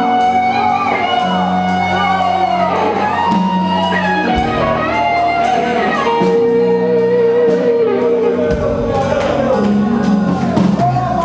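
Live music with electric guitar and bass playing sustained chords and melody lines, with faint voices underneath.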